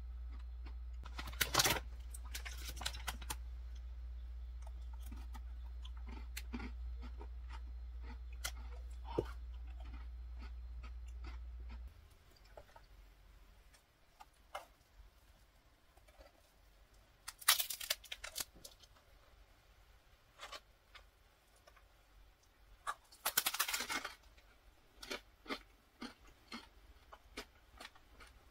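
Crisp bites into a toasted pepperoni ciabatta: two loud crackling bites in the second half, then crunchy chewing. Earlier a low steady hum with scattered clicks and a short rustle runs, then cuts off suddenly.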